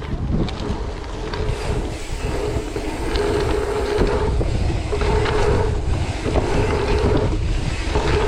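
Strong wind buffeting the microphone in a loud, continuous rumble. Over it a steady mid-pitched buzz comes and goes about four times, with a few scattered clicks.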